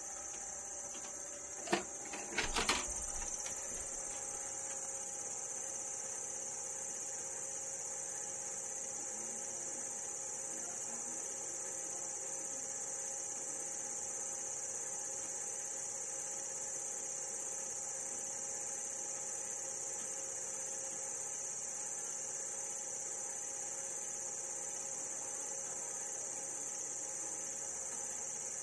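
VCR loading a VHS tape: a few sharp mechanical clicks about two seconds in, then a steady high-pitched hiss with a faint hum while it waits to play.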